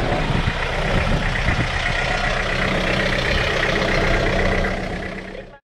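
Four-wheel-drive truck engine idling steadily, fading over the last second and then cutting off.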